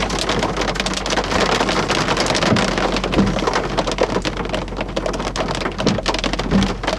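Rain pelting a car's windshield and roof, heard from inside the car: a dense, steady patter of many drop impacts.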